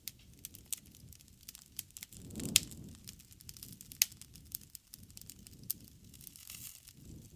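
Wood bonfire crackling: a steady stream of small snaps and pops over a soft low rush of flames, with two much louder pops about two and a half and four seconds in.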